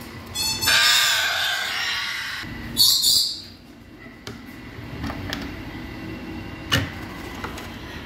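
African grey parrot in its nest box giving a harsh, drawn-out screech for about two seconds, then a short high hiss. After that, a few sharp clicks and knocks of the brass latch bolts and wooden box doors.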